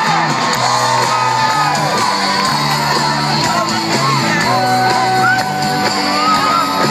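A live band playing through a loud stage PA, with a large crowd singing along, shouting and whooping over it. A sung note is held for about a second and a half near the middle.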